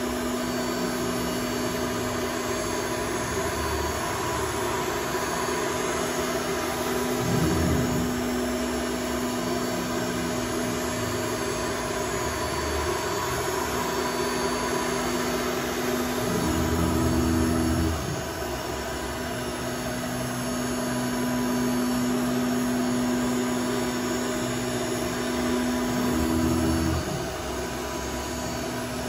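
Mercury ATC CNC router running a 3D machining program: a steady whine from the spinning spindle over a constant machine hiss. Three times the sound swells louder for a second or so, with a deeper note added, as the machine moves.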